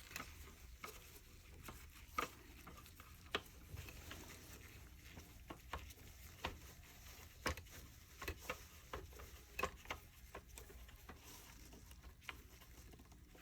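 Faint, irregular small clicks and ticks of a screwdriver turning a screw into the plastic housing of a Dyson Cinetic vacuum cleaner head, closing the gap left by a missing screw.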